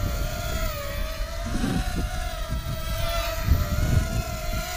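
Eachine Racer 130 mini racing quadcopter in flight: its 4000 kV brushless motors and propellers give a steady whine whose pitch wavers slightly with throttle, over a rumble of wind and prop wash.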